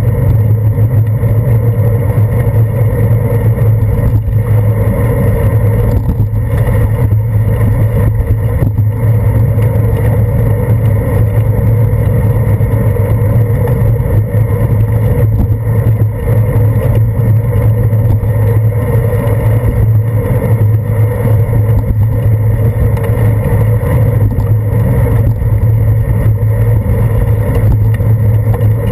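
Steady, loud road and wind noise picked up by a handlebar-mounted GoPro Hero 2 as the bicycle rolls along wet pavement, heard as a constant low hum muffled by the camera's waterproof housing.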